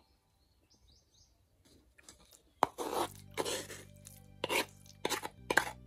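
A wooden spoon scraping boiled pumpkin out of an earthenware pot into a glass bowl. About two and a half seconds in there is a sharp knock, then a series of short scrapes.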